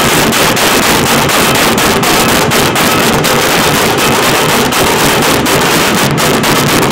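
Several large dhol barrel drums beaten with sticks together, a loud, dense, unbroken pounding.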